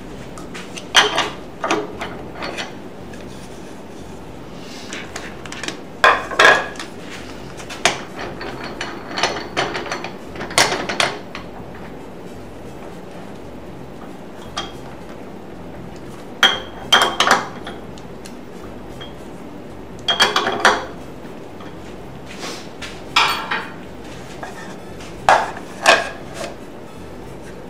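Metal lathe chuck parts being handled and fitted: sharp clanks and knocks in scattered clusters every few seconds. The scroll chuck comes off the spindle, and a button-jaw plate with rubber stops in spiral slots goes on and is adjusted around a wooden bowl.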